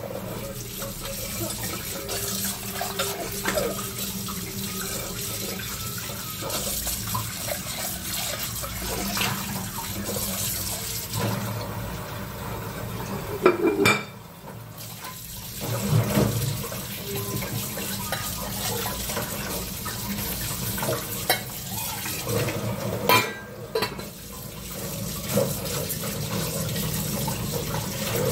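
Kitchen tap running steadily into a sink while dishes are scrubbed and rinsed under it, with scattered clinks and clatters of the dishes. The two loudest clatters come about halfway and about four-fifths of the way through, and each time the rush of water briefly drops away.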